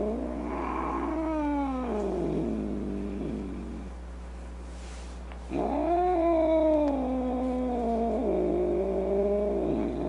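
Cat yowling in long, drawn-out calls. One rises and then falls away over about two and a half seconds; after a pause with a short breathy hiss, a longer wavering yowl starts about five and a half seconds in and dips twice before breaking off near the end.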